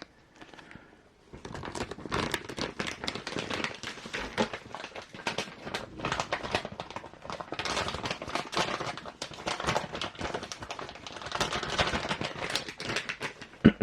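Plastic packaging crinkling and rustling, with irregular clicks and light knocks, as parts are handled and pulled from their bags.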